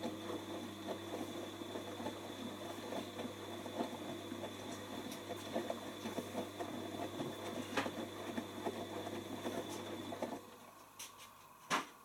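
Whirlpool AWO12963S front-loading washing machine tumbling a load in its wash phase: the drum motor hums steadily with a faint high whine while wet laundry and water slosh and patter in the drum. The motor stops about ten seconds in as the drum comes to rest, and a sharp click follows near the end.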